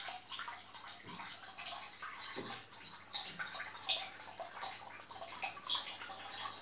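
Turtle tank water bubbling and trickling, with an irregular patter of small drips and splashes from the rising air bubbles.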